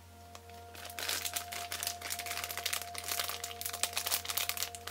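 Clear plastic bag crinkling and crackling as fingers handle the clear sprue of canopy parts inside it. The crackling becomes dense about a second in.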